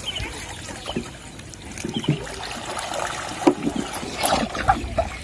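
Shallow pond water sloshing and splashing as people wade through it, with several sharper splashes where bamboo polo plunge traps are pushed down into the water.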